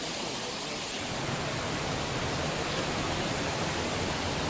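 Tegenungan waterfall: a steady rush of falling water, its low rumble growing stronger about a second in.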